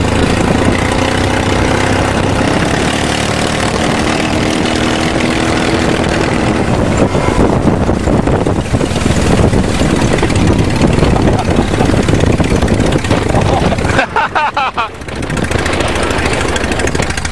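Engine of a small off-road vehicle running as it drives across a bumpy field, with a brief lull about fourteen seconds in.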